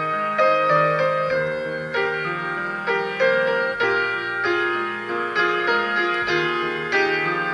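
Instrumental background music: keyboard or piano notes struck in a steady, unhurried rhythm over sustained chords.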